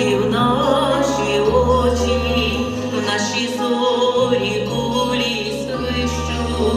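Introduction of a slow song before the vocals begin: a sustained melody with a slight waver, over bass notes that change every second or so.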